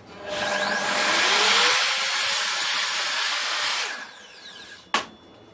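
Sliding mitre saw with an Evolution wood-cutting blade spinning up and cutting through a pallet board, then winding down about four seconds in. A single sharp knock follows near the end.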